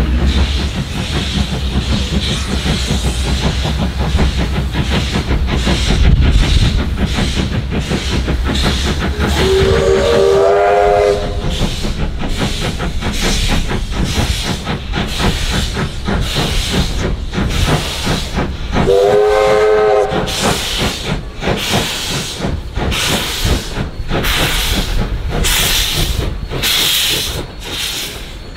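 Small steam locomotive moving slowly, its exhaust beating steadily over a constant hiss of steam from the open cylinder drain cocks. Its steam whistle blows twice, each blast about a second and a half long and rising a little in pitch at the start, about ten seconds in and again about nineteen seconds in.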